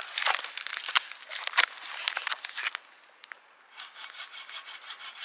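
Crinkling and rustling of plastic food packaging being handled, in a run of irregular sharp crackles with a short lull about three seconds in.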